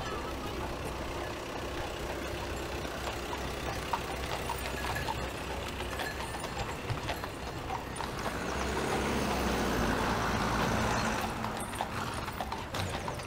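Shod horses' hooves clip-clopping on an asphalt road as a procession of horses and horse-drawn wagons approaches. A passing vehicle swells louder for a few seconds past the middle.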